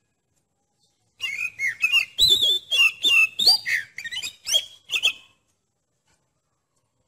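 Oriental magpie-robin singing one varied phrase of whistled notes mixed with sharp clicking notes. The phrase starts about a second in and lasts about four seconds.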